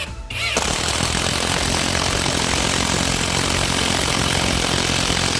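Cordless impact wrench driving a long screw into a timber beam, its hammering mechanism running as a loud, steady rattle that starts about half a second in after a brief spin-up.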